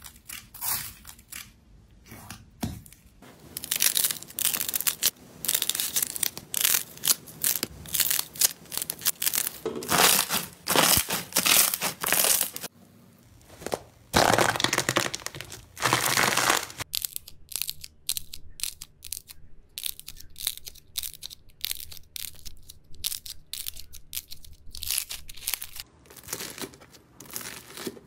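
Crunchy foam-bead slime (floam) crackling and popping as a hand presses into it, then slime squeezed through a wire cooling rack under the palms. Dense crackling gives way, after a short lull, to sparser separate clicks near the end.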